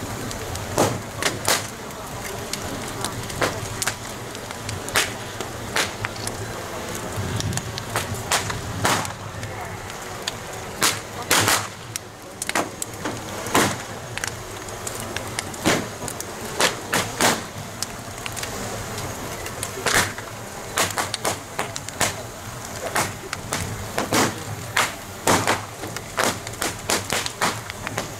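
Big bonfire of a burning wooden wang ship and joss paper, crackling with sharp, irregular pops and cracks, sometimes several a second, over a steady rushing noise.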